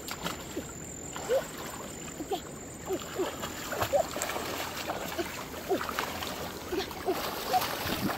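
Shallow muddy water sloshing and splashing as a person wades and gropes through it by hand, with many small irregular plops and gurgles.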